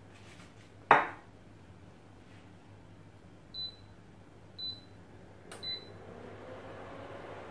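Induction hob's touch controls beeping three times, short high beeps about a second apart, after a single knock about a second in. Near the end a low hum with a steady tone swells in as the hob starts heating the pan.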